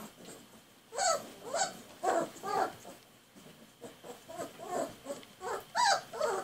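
A three-week-old Great Dane puppy whining: two runs of short, high, pitched cries a few tenths of a second apart, the second run longer and loudest near its end.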